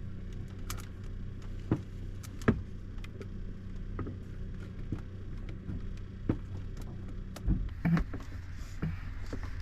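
Scattered clicks and knocks of an oil-extraction pump and its hose being handled and fitted to a boat's diesel engine, over a steady low hum, with a heavier thump about seven and a half seconds in.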